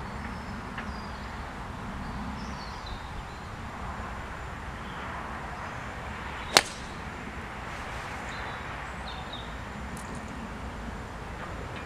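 A golf club striking the ball off the tee: one sharp crack about six and a half seconds in, over a steady outdoor background.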